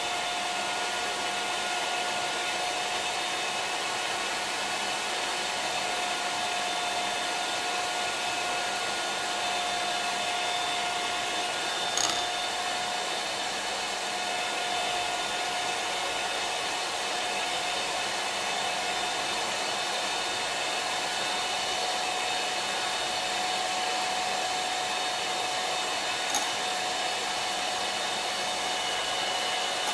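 Electric hand mixer running steadily at one speed, its beaters whipping instant cappuccino, sugar and hot water into dalgona coffee foam in a small glass jar, with one unchanging whine. Two brief clicks break through, about twelve seconds in and near the end.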